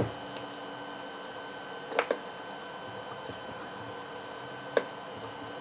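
A few small plastic clicks and taps as the cell caps are worked off the top of a small lead-acid battery: one at the start, a quick pair about two seconds in, and one near the end. They sit over a steady electrical hum with a faint high whine.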